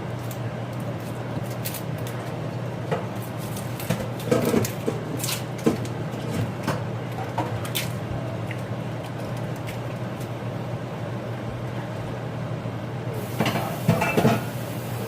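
Kitchen clatter: scattered clinks and knocks of dishes, utensils and cupboards being handled, with a burst of clatter near the end, over a steady low hum.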